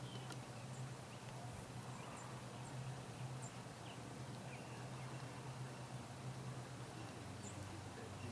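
Quiet outdoor ambience at a horse arena: a steady low hum under a faint hiss, with a few short, faint high chirps scattered through.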